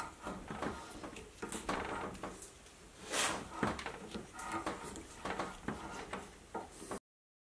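Hand die in a die stock cutting an M8 thread onto a mild steel rod: irregular scraping and creaking clicks as the die is turned. It stops abruptly near the end.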